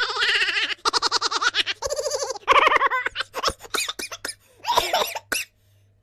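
People laughing, in several bouts of quick pulsing laughs with short breaks between.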